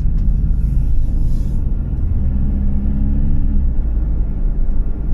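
Steady low rumble of a car in motion, heard from inside the cabin, with a low engine hum standing out for a second or two midway.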